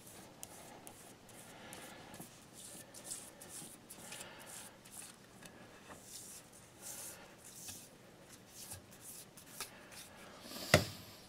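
Fine 3600-grit Micro-Mesh abrasive rubbing over a filled chip on a glazed ceramic plate, in a series of soft, faint strokes, pressed in one direction only rather than back and forth, to level and polish the patch. A sharp click near the end.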